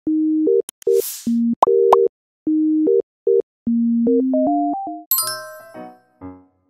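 Intro music: a simple melody of plain electronic beep tones stepping between a few pitches, with a brief whoosh about a second in, then keyboard chords ringing out from about five seconds in.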